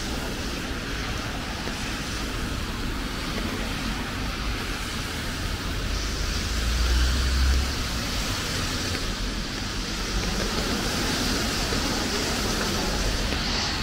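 City road traffic passing on a wet road: a steady hiss of tyres with engine rumble underneath. A vehicle passes close a little past halfway, where the low rumble swells to its loudest.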